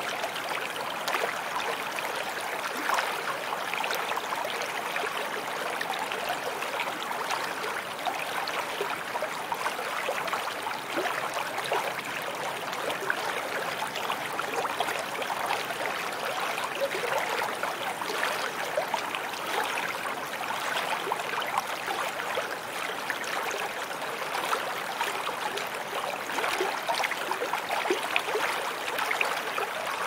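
A shallow, fast stream of water running over rocks: a steady splashing babble with small, quick splashes throughout.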